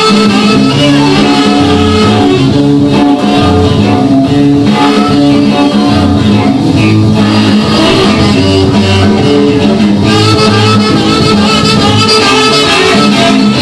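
Rock and roll record playing: a guitar-led band with a steady, rhythmic bass line and no clear singing.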